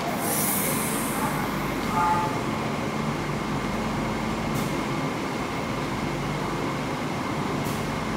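Bukit Panjang LRT rubber-tyred light rail vehicle (Adtranz C801 type) at the station, giving a steady hum with a thin high whine. A brief high hiss comes about half a second in, and there are a couple of faint clicks later.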